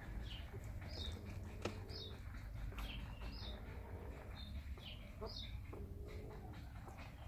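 Small birds chirping, short high notes about once a second, over a steady low rumble.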